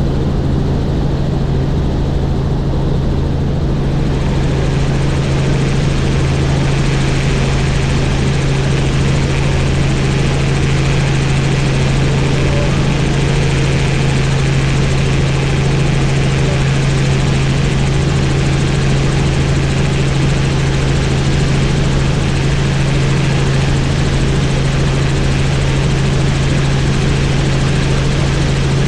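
Helicopter in flight: its rotor and turbine engine run with a steady low drone. A rushing noise in the upper range grows about four seconds in.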